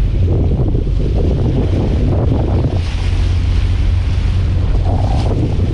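Wind buffeting the microphone over a steady low rumble and the wash of the sea around a boat.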